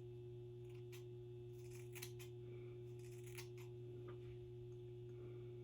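Scissors snipping the synthetic hair of a wig's bangs: several faint, quick snips in the first few seconds, over a steady low hum.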